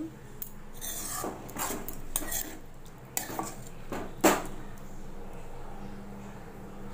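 A spatula stirring and scraping through thick cooked bitter gourd curry in a pan, with a string of scrapes and clinks against the pan over the first four seconds. The loudest is a sharp knock a little past four seconds, then it goes quiet.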